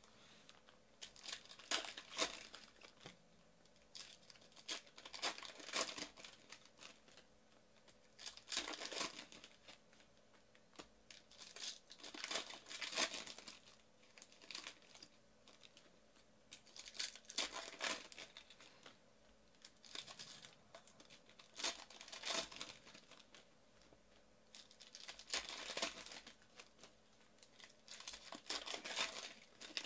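Foil trading-card pack wrappers being torn open and crinkled by hand. The crinkling comes in short, separate bursts every two to three seconds.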